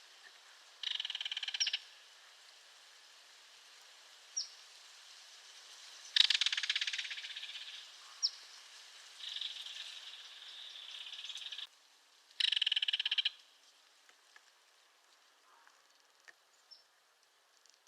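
Belted kingfisher giving its dry, rapid rattling call in several bursts: a short one about a second in, a long loud one midway, a weaker one after it, and a short one near the end. A few brief, sharp high notes fall between the rattles.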